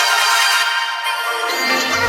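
Electronic dance music track, held without its bass and thinning out as it builds toward a drop.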